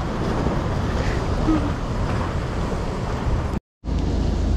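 Surf on a rocky shore with wind on the microphone: a steady rushing noise with a heavy low rumble. It drops out for a split second about three and a half seconds in, then comes back.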